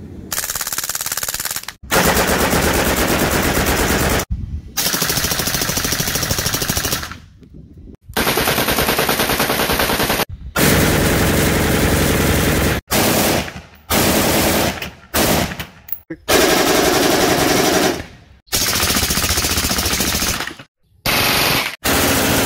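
Full-automatic rifle fire, mostly AR-15-style rifles: a string of long, rapid bursts, one after another. Each burst stops abruptly before the next begins.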